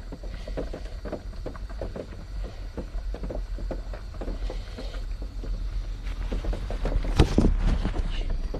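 Pot of instant noodles boiling on a gas stove: irregular small bubbling ticks over a steady low hum, with one louder knock about seven seconds in.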